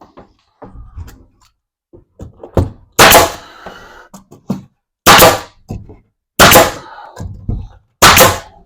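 Nail gun firing four times, each shot a sharp crack followed by a short hiss, about a second and a half to two seconds apart, with a few softer knocks before the first. The gun was not driving any nails.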